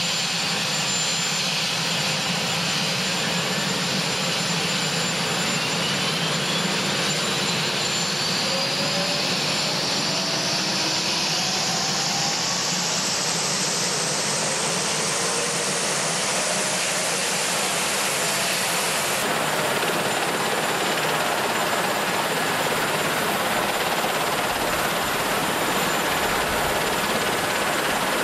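Marine One, a Sikorsky VH-3 Sea King, running on the ground with its main rotor turning: a loud, steady turbine-and-rotor rush. Over it, a thin whine climbs slowly in pitch for about fifteen seconds as the engines spool up. The sound changes abruptly about two-thirds of the way through, and the helicopter noise carries on after that.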